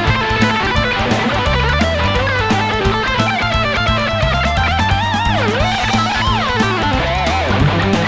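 Charvel electric guitar played through a Blackstar HT Club 50 valve amp head, a lead solo with a delay added. It plays fast runs, then wide vibrato and sweeping pitch bends about five to six and a half seconds in.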